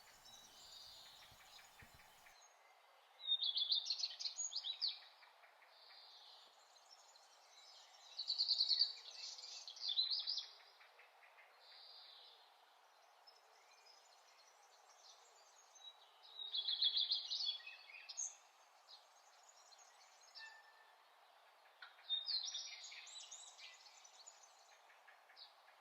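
Songbirds singing: four loud bouts of quick, high chirps and trills, a few seconds apart, with fainter calls between them over a steady low background hiss.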